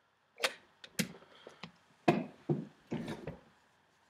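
About half a dozen sharp knocks and taps at uneven intervals, the loudest about two seconds in.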